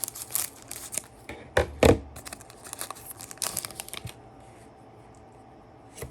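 A trading card pack's wrapper being torn open and crinkled by hand: a run of sharp rustling tears for about four seconds, the loudest just under two seconds in, then it stops.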